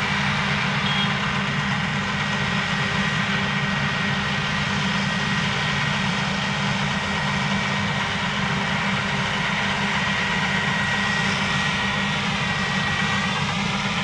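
CLAAS Lexion 770 combine harvester running at full work, its Mercedes-Benz OM 473 LA inline six-cylinder engine and threshing gear making a steady drone as it drives past close by. A thin high whine runs over it and dips in pitch near the end as the machine moves away.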